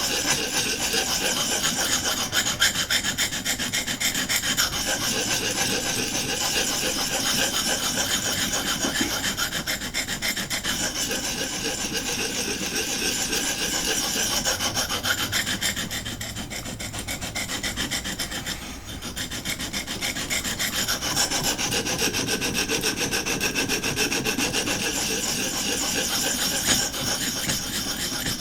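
Abrasive on a Vipersharp guided sharpening rod scrubbed rapidly back and forth across a clamped knife's edge, a continuous dry rasping as the secondary bevel is ground on the blade's second side. The rasping eases a little for a couple of seconds past the middle, then picks up again.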